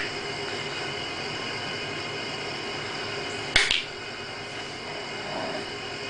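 A small tin can knocks once on a wooden parquet floor about three and a half seconds in: a sharp knock with a brief metallic ring, over a steady background hum.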